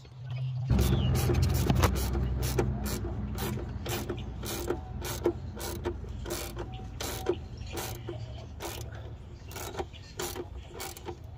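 Hand ratchet with an extension driving a bolt, its pawl clicking in a steady rhythm of about two to three clicks a second. A low steady hum comes in under it about a second in.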